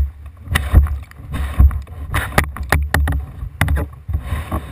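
Kayak paddling close to a bow-mounted camera: paddle blades splashing in the water, with many sharp knocks and clicks over a steady low rumble.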